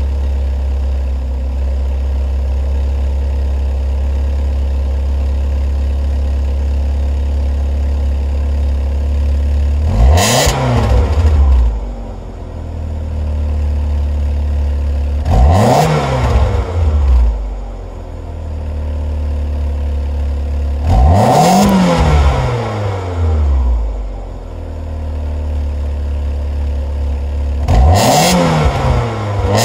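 Kia Elan's four-cylinder engine heard at the tailpipe, idling steadily, then blipped four times. Each rev rises and falls back to idle over a second or two, with the blips coming about every five to six seconds.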